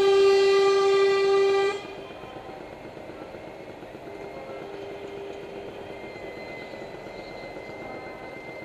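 Truck air horn held on one steady note, cutting off abruptly about two seconds in, followed by quieter background noise.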